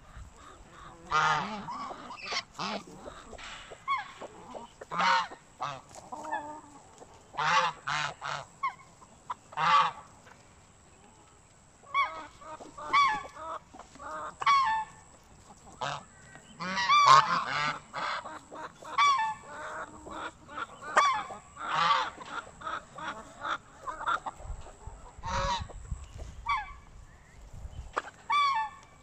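Domestic geese honking in many short calls, repeated irregularly and sometimes overlapping, with a pause of a couple of seconds about a third of the way in.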